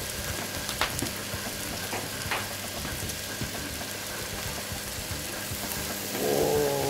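Meat juices poured from a tray over a whole lamb roasting on a spit above wood coals, sizzling steadily, with a few sharp crackles.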